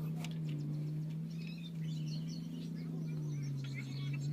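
Birds chirping over a steady low machine hum, with a few faint clicks.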